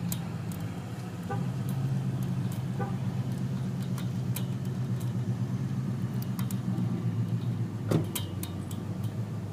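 A steady low engine-like hum, with scattered light metallic clicks on top and one sharper click about eight seconds in, typical of lock picks and a tension tool working in a brass padlock.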